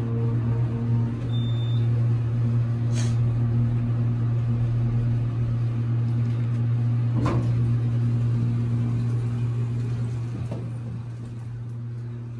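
Passenger elevator running: a steady low hum with a couple of fainter steady tones above it, and a single thump about seven seconds in. The hum fades over the last two seconds.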